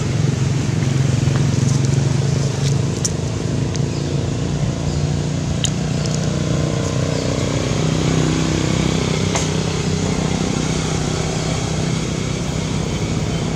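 A motor vehicle engine running steadily, with a few faint clicks.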